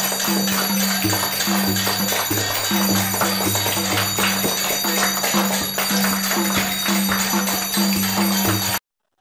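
Background music with a steady beat and a repeating bass line, cutting off suddenly near the end.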